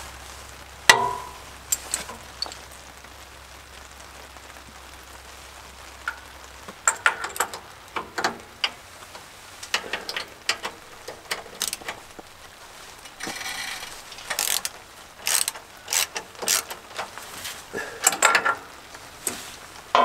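Socket ratchet clicking in short runs as steel motor mounting bolts are worked loose on a sawmill's engine mount, to relieve drive belt tension, with a sharp metal clank about a second in.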